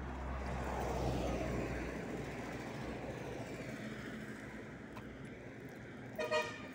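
A car passes on the road. Its tyre and engine noise swells to a peak about a second in, then slowly fades. Near the end comes one short, high-pitched beep.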